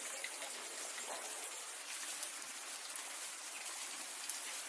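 Steady rain falling into a puddle and onto wet ground, with a few distinct drops ticking out above the patter.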